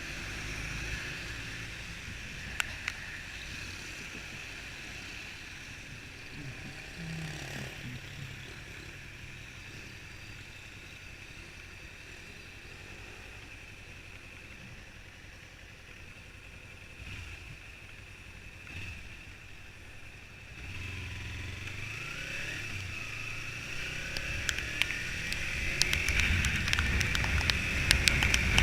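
Motorcycle riding noise: steady wind and road rush with a low engine rumble, growing louder in the last third.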